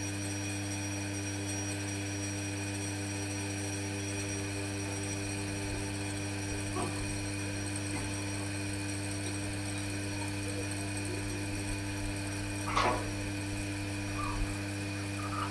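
Electric vacuum pump running with a steady hum as it draws the air out of a bell jar, with a faint knock midway and a louder one near the end. The electric bell inside the jar stays switched on, but its ring does not carry through the thinning air.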